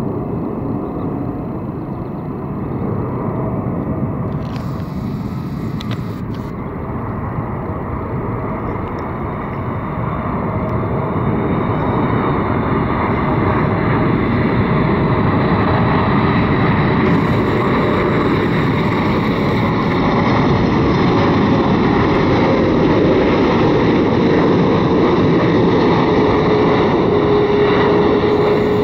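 Jet noise from a Boeing 747-8F's four GEnx turbofan engines as the freighter comes in low on approach. It gets louder from about a third of the way in and stays loud, with a steady engine whine that falls slightly near the end.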